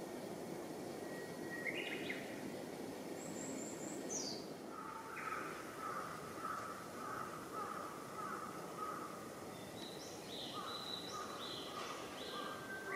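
Wild birds calling over a steady outdoor background hiss. There is a run of short, evenly repeated notes in the middle, with thin high chirps and calls around it.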